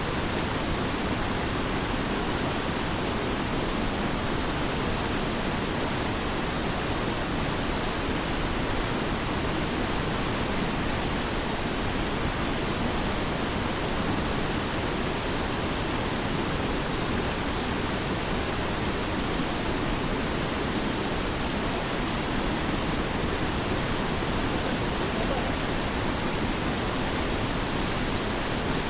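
Waterfall: falling water rushing steadily and evenly, with no change.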